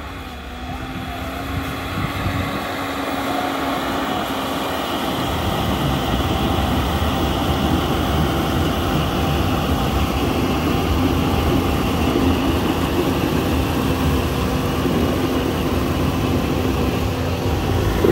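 Mitsubishi L200 Triton pickup's engine working under load while driving off-road. It grows louder over the first several seconds, then holds steady, with a steady hum running through it.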